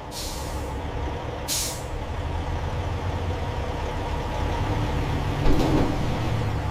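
Heavy machinery running with a steady low rumble, broken by two short hisses of released air near the start and a single knock about five and a half seconds in.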